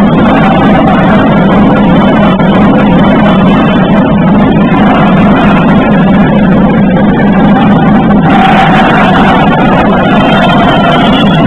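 Loud, steady rumbling din of a basketball hall during play, the crowd and court noise blurred together.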